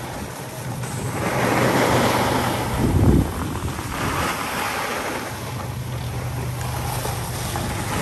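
Skis sliding and scraping over groomed snow on a slow downhill run, the noise swelling and fading with each turn, mixed with wind buffeting the microphone; a low wind rumble comes about three seconds in.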